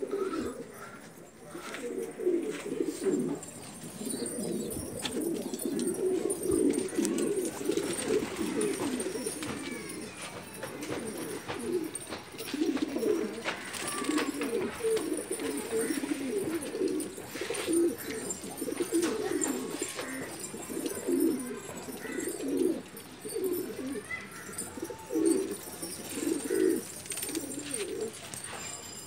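A flock of domestic pigeons cooing, many low coos overlapping and repeating without a break.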